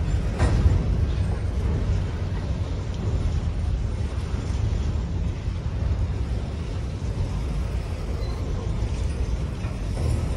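Empty covered hopper cars of a freight train rolling past on the rails: a steady low rumble of steel wheels on track, with a faint click or two from the wheels.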